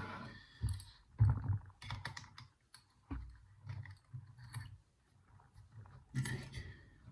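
Small metallic clicks and rattles from a four-lever safe drawer lock and its key or picking tools being handled, irregular and close to the microphone.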